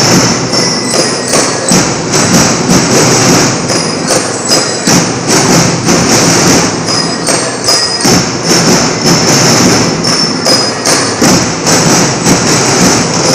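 School marching band playing loudly, its drums beating a steady, pounding march rhythm.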